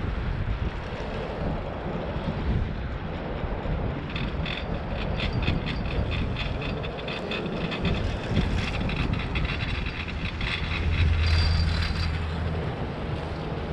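Chairlift ride with wind buffeting the microphone and a steady rumble. A rapid clicking rattle runs for several seconds through the middle, and a brief low hum comes near the end.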